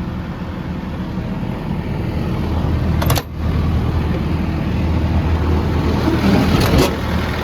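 Case CX240B excavator's diesel engine idling steadily at the open engine compartment, with a brief dip about three seconds in and a couple of light knocks near the end.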